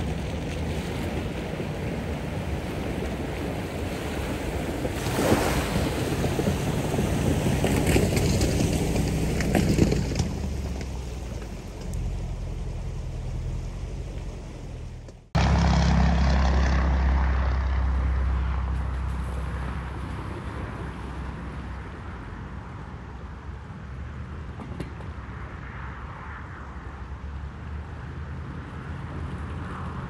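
Range Rover Sport's engine running as it wades through a shallow river, with water washing and splashing around the wheels, the splashing loudest several seconds in. About halfway through the sound cuts abruptly to a more distant engine and rushing water, with a low rumble of wind on the microphone that fades away.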